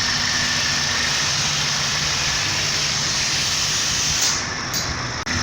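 Honda Fit 1.5 four-cylinder engine idling steadily, with a constant hiss over it. Near the end the hiss thins and the sound drops out for an instant.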